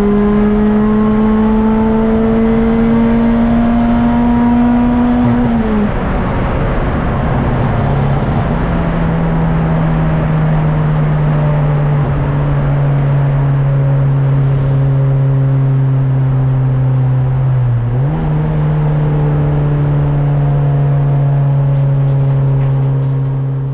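Modified Ford race car engine heard from inside the cockpit, with road and wind noise. The revs climb slowly until they fall sharply about six seconds in. The engine then runs at a steady lower speed, with a brief dip and pick-up just before eighteen seconds.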